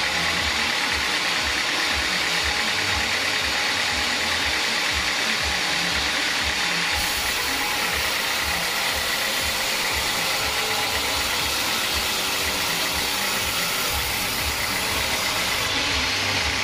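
Home-built band sawmill running, its band-saw blade cutting lengthwise through a squared teak log with a steady, loud saw noise. A brighter hiss joins in from about seven seconds in until near the end.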